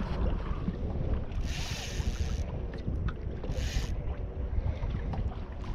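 Wind buffeting the microphone, broken by two bursts of a fly reel's drag buzzing as a hooked fish pulls line off: the first about a second long, the second a short one a second later.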